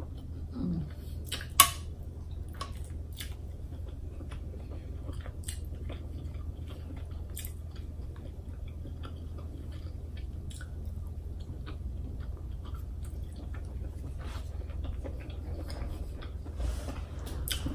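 A person chewing king crab meat close to the microphone, with scattered soft wet clicks and smacks of the mouth. One sharp click about a second and a half in stands out as the loudest sound.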